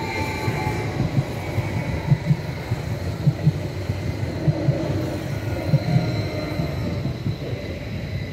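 Stadler FLIRT electric train passing over the level crossing: a steady rumble of wheels on rail with irregular knocks running through it.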